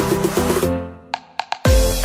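Electronic dance music with a steady beat; about halfway through the track drops out to a few isolated hits, then comes back in with a heavy bass kick.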